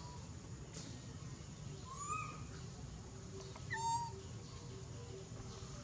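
Baby macaque giving two short, tonal crying calls, the first arching up and down about two seconds in, the second shorter and louder about four seconds in.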